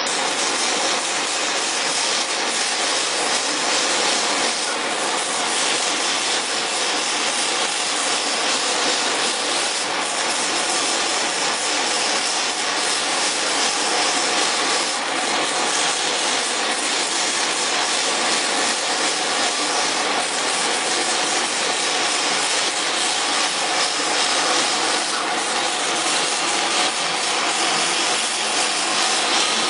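CO2 laser cutting and perforating machine at work on leather, giving a steady, even rushing noise of blowing air and fans.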